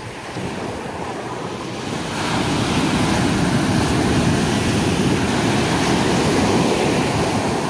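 Ocean surf breaking at the shoreline and foaming up the sand. A wave crashes about two seconds in, and the wash stays loud before easing off near the end.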